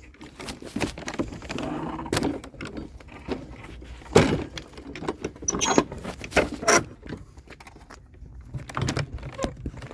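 A metal gate being dragged along the ground, scraping, with a series of sharp metal clanks and knocks.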